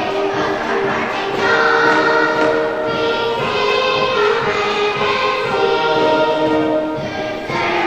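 A choir singing held notes with musical accompaniment.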